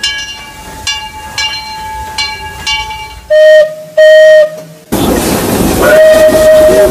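Disneyland Railroad steam locomotive bell ringing about two strokes a second, then two short whistle toots and a long steam whistle blast that opens with a rush of steam hiss before the tone sounds.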